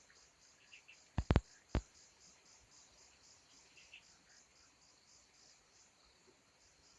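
Insects chirping in a steady pulsing rhythm, with three sharp clicks a little over a second in and a few faint higher chirps.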